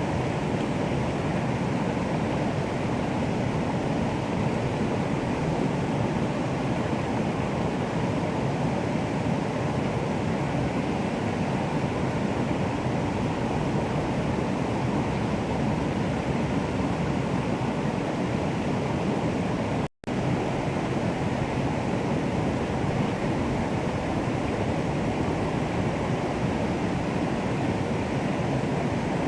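Running water making a steady, even rush with no pitch or rhythm. It cuts out for an instant about two-thirds of the way through.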